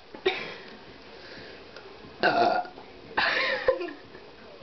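Two loud burps, brought on by drinking orange soda: one about two seconds in and a slightly longer one a second later.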